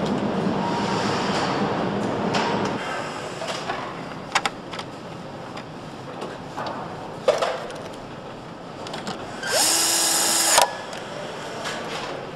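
Motorcycle assembly-line noise: a steady machine hum at first, then scattered clicks and knocks of parts being fitted. About three quarters of the way through, a power tool runs for about a second, the loudest sound here.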